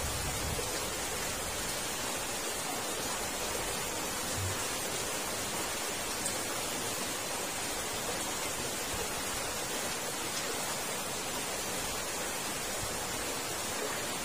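Steady rushing noise of water, even and unchanging throughout.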